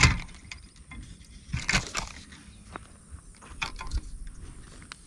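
Handling noise from a spinning rod and reel: a sharp knock at the start, then scattered clicks and rustles, with louder bursts about two and four seconds in.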